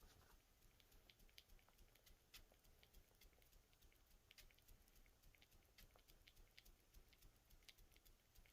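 Near silence: faint room tone with scattered tiny clicks.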